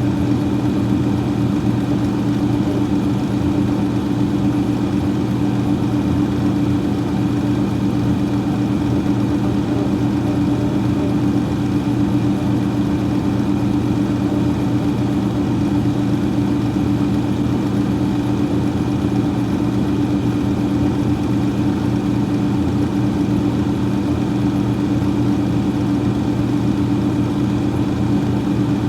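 Freezer fan running, a steady motor hum with a low tone and whooshing air noise that holds unchanged.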